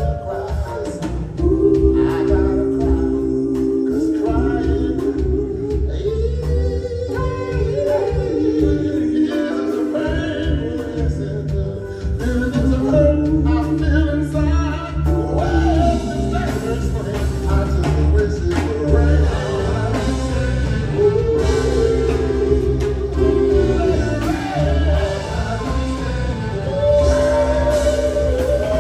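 Live soul band and male vocal group performing a slow ballad: several voices singing long held harmonies over bass, drums and keyboard.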